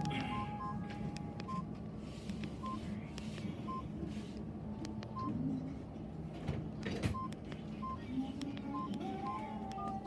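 Samsung GT-E1150 mobile phone giving short single keypad beeps at irregular intervals as its buttons are pressed, with sharp clicks of handling and a steady low hum underneath.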